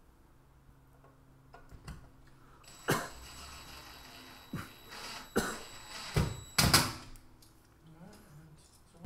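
DeWalt cordless drill/driver running briefly at low speed, a thin high whine lasting about two seconds, as it drives a screw at a recessed TV wall box. Several sharp knocks and clunks follow, the loudest about seven seconds in.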